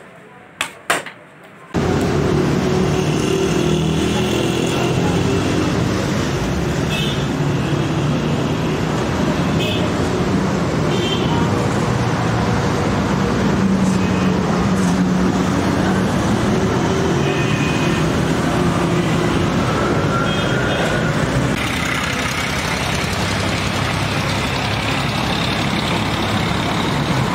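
A few light clinks, then about two seconds in a loud, steady street-traffic din starts abruptly: vehicle engines running, with voices mixed in.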